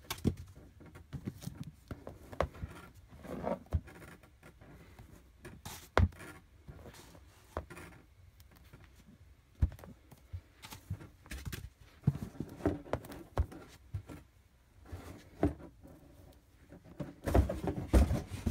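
Cardboard boxes and foam packaging being handled: irregular taps, knocks and soft rustling and scraping, with one sharper knock about a third of the way in.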